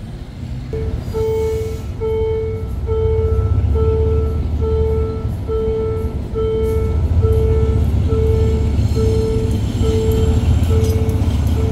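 Railway level-crossing warning alarm sounding an even electronic beep, about two a second, starting just under a second in. Under it runs a low engine rumble that swells louder partway through.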